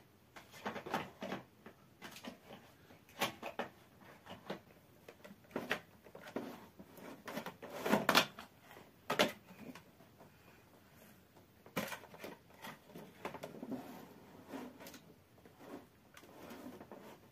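Plastic appliance parts and a cord clicking and knocking against each other and a cardboard box as a small child rummages through them: irregular handling knocks, loudest about eight seconds in.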